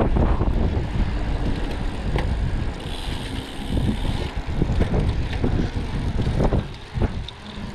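Wind buffeting the microphone of a rider on a moving bicycle, a dense low rumble with road noise, with a brief higher hiss about three seconds in; it eases near the end.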